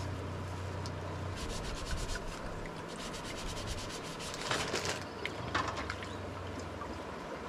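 A kitchen sponge scrubbing a small metal can opener in a dish basin: a run of quick rubbing strokes, heaviest about four and a half seconds in.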